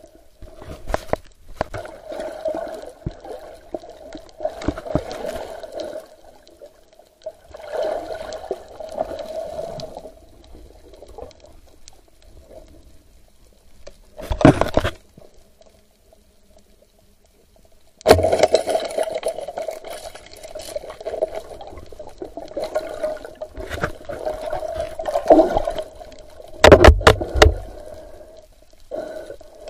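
Muffled underwater water noise, surging and bubbling, over a steady hum. Scrapes and knocks come through it, the loudest near the end, with a brief quiet spell about halfway through.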